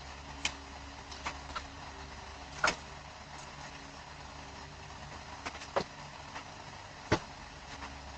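Irregular sharp clicks and knocks of car doors being tried over a steady low hum of a running vehicle; the loudest knocks come a little under three seconds in and about seven seconds in.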